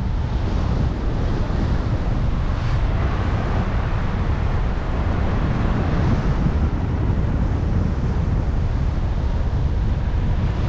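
Wind rushing over the camera microphone of a paraglider in flight, a loud steady buffeting noise heavy in the low end.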